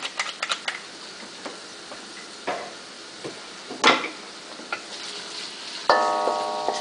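Garlic and ginger frying gently in oil in a stainless steel wok: a soft steady sizzle with scattered small pops and ticks. About six seconds in, a knock sets off a metallic ringing that carries on.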